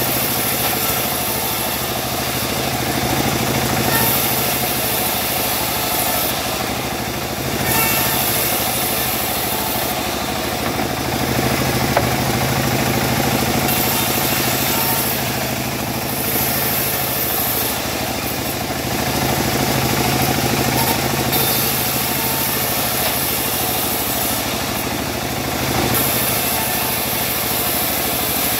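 Homemade band sawmill running steadily, its band blade ripping through a teak log to slice off boards. The cutting noise swells and fades every few seconds over the machine's steady hum.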